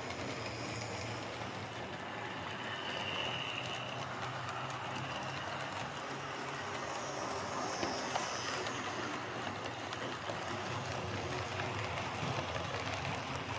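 OO gauge model trains running on layout track: the repaired Hornby Class 3F 'Jinty' tank engine, fitted with a replacement motor, and its coaches roll along steadily, with a faint motor whine that comes and goes and light clicks from the rails. A second model train runs on the neighbouring line.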